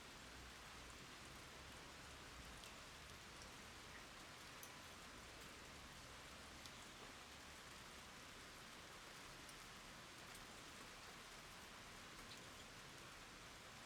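Rain falling on a wet surface: a faint, steady hiss with scattered single drop ticks.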